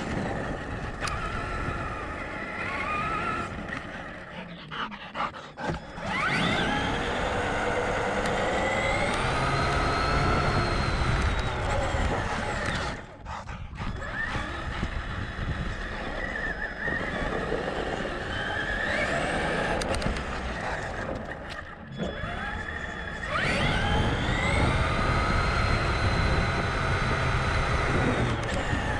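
Traxxas Summit RC truck's electric motor and drivetrain whining, rising in pitch as it speeds up and falling as it slows, in three main runs with short let-offs between them.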